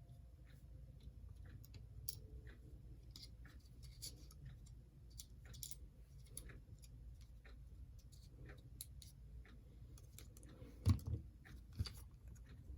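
Faint scattered clicks and scrapes of small plastic model-locomotive parts being handled and fitted together, with a few louder knocks near the end.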